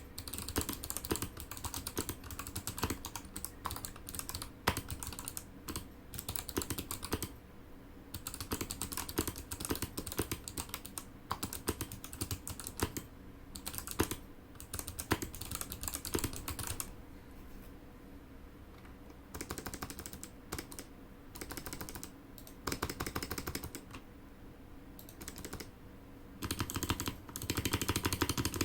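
Typing on an XD68 mechanical keyboard with clicky Kailh Box White switches, its case padded inside with cotton wool: quick runs of key clicks with short lulls, and a dense flurry near the end.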